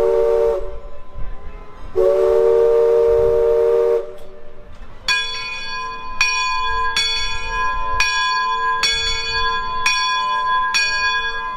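Riverboat steam whistle sounding a chord of several tones: the end of one blast, then a second blast of about two seconds. From about five seconds in, a bell rings in steady strokes, roughly one a second.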